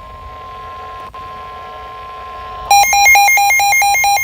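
NOAA Weather Radio warning alert tone: a steady single-pitched tone of about 1050 Hz, heard faintly over radio hiss. About two and a half seconds in, a weather alert radio's own alarm cuts in with loud, rapid beeping, signalling an incoming warning.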